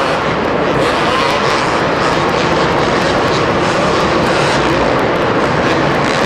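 Two-stroke supercross motorcycle engines running hard and revving on the track, a continuous high-pitched buzzing drone with quick throttle changes.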